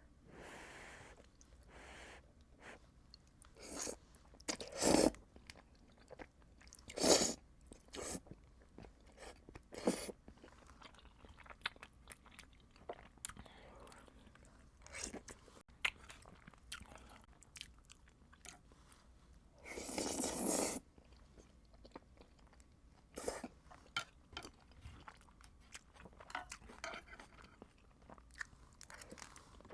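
A person chewing and eating Buldak spicy instant noodles, with many small wet mouth clicks and several louder bursts of eating noise, the longest lasting about a second and a half about two-thirds of the way through.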